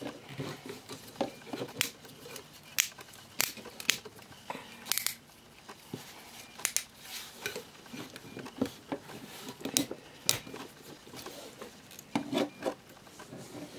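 Irregular clicks and knocks of hard plastic parts as a large Transformers Studio Series Leader Class Jetfire action figure is handled and its limbs and joints repositioned.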